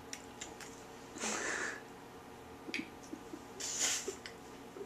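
A person's two loud, unpitched breaths, about half a second each and a couple of seconds apart, with a few faint mouth clicks between them, while forcing down a tablespoon of honey mustard that she finds disgusting.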